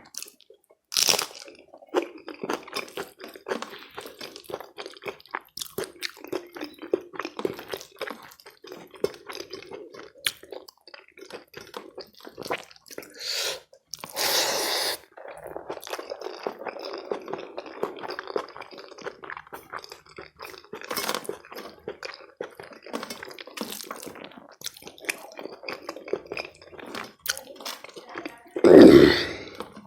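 Close-up eating sounds of rice and curry: irregular wet, squishy chewing with crunchy bites and lip smacks. There is a louder rushing sound about halfway through and a loud, deeper burst near the end.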